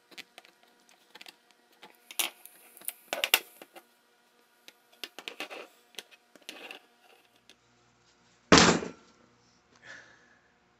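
Scattered clicks, knocks and scrapes of parts and tools being handled on a workbench, with one loud thump about eight and a half seconds in.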